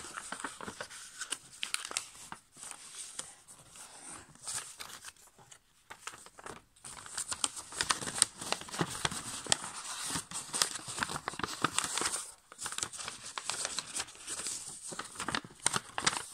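A sheet of A5 copy paper being folded by hand on a tabletop: crisp crinkling and rustling as fingers press and run along the creases. There are short lulls about six seconds in and again near twelve seconds.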